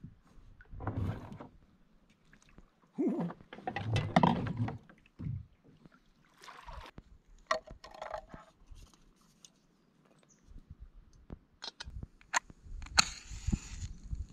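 Scattered knocks, clicks and handling sounds as a small portable gas camp stove is screwed onto its canister and set up beside cook pots, with a hiss near the end.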